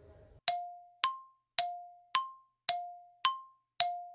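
Quiz countdown-timer sound effect: short struck ticks alternating between a lower and a higher tone, about two a second, starting about half a second in.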